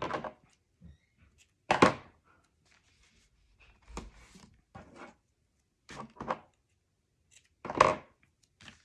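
Paper and cardstock being handled and set down on a work surface: a few short thunks and rustles, the loudest about two seconds in and near the end.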